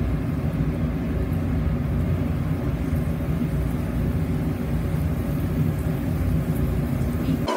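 Steady low rumble of kitchen background noise, with a faint hiss from garlic and dried chili heating gently in olive oil in a frying pan over low heat. The rumble cuts off abruptly at the very end.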